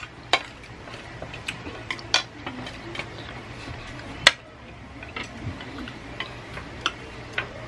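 Metal spoon scraping and clinking on a plate, with wooden chopsticks tapping: a string of short, sharp clicks. The loudest comes about four seconds in, as the utensils are set down on the tray.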